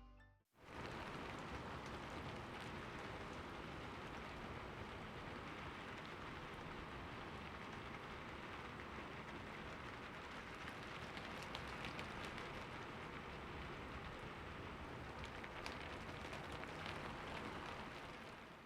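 Steady rain: an even, fairly quiet patter with scattered sharper drop ticks, starting just after the music fades out.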